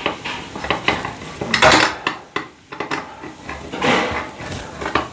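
Hand screwdriver driving screws through a light fixture's metal mounting bracket into the wall box: irregular metallic clicking and scraping, with louder rasps about one and a half seconds in and again near four seconds.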